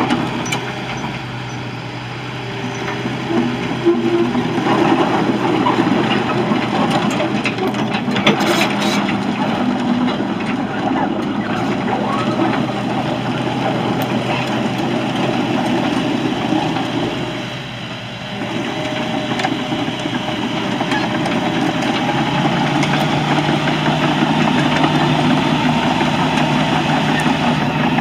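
Isuzu diesel engine of a Hitachi ZX160 crawler excavator running under work, with a steady engine note that steps up in pitch about three-quarters of the way through. Its loudness dips briefly a little past the middle, and a few sharp metallic clanks come about a third of the way in.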